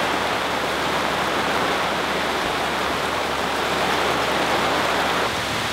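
Steady heavy rain falling, an even, unbroken wash of noise.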